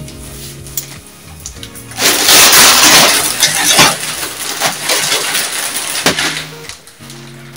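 Clear plastic bag crinkling and rustling as it is handled and packed with pine needles, loud for a few seconds starting about two seconds in, over steady background music.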